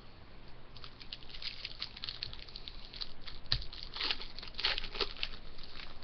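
Hockey card pack wrapper crinkling and tearing open, with the cards being handled: a quick run of small crackles and snaps, the sharpest about three and a half seconds in.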